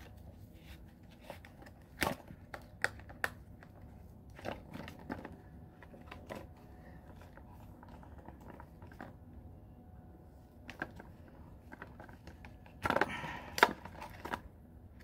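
Hands working a Timex watch out of its box and tight plastic packaging: scattered small clicks and crinkles, with a louder burst of rustling about thirteen seconds in.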